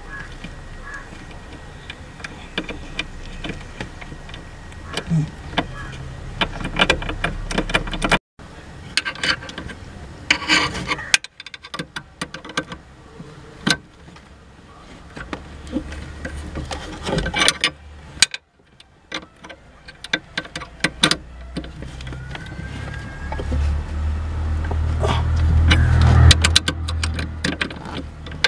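Hands working a thin wire pin and metal fittings under a van's dashboard: scattered clicks, small metal clinks and rubbing, with a few abrupt breaks. A low rumble swells near the end and is the loudest part.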